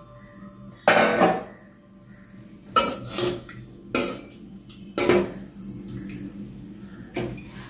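Metal spoon knocking and scraping against the side of a metal cooking pot while stirring coconut milk into it: about five sharp clinks a second or so apart.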